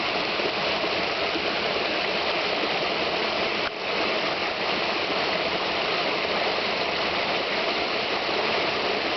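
Small brook babbling: steady rushing and trickling of flowing water.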